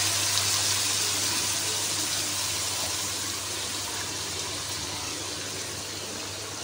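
Chicken karahi sizzling in a wok, its tomato gravy cooked down until the oil has separated: a steady hiss that slowly fades.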